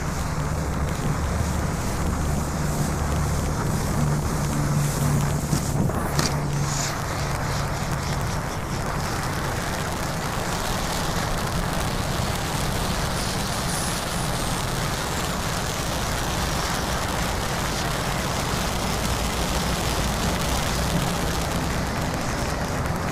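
World-Class Fireworks 'Tree Fort' ground fountain burning, a steady rushing hiss as it sprays sparks up and out across the ground.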